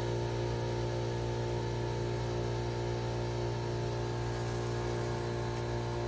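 Outdoor unit of a 1983 Whirlpool NCHBA 2.5-ton heat pump running: a steady low hum with several steady higher tones over it, without change.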